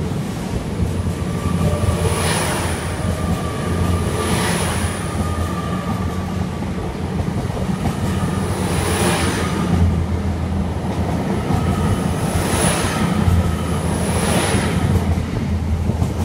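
An LNER Azuma (Hitachi Class 800-series) passenger train passing close along the platform: a steady rumble of wheels on rail that swells five times as its wheelsets go by, each swell with a high ringing tone.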